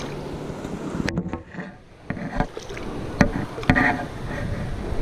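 Shallow river water splashing and sloshing around the legs of a person wading, with a few sharp knocks.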